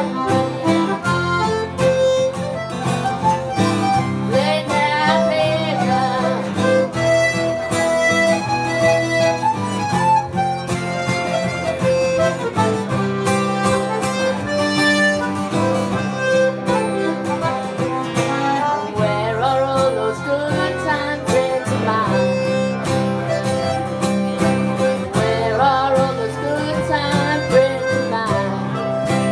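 Instrumental break in a blues song: acoustic guitar strumming under a button accordion playing the melody in sustained reedy notes.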